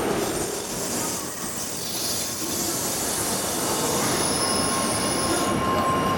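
N700 series Shinkansen train rolling slowly alongside the platform as it pulls in, a continuous rumble of wheels on rail. About four seconds in, a steady high squeal joins it.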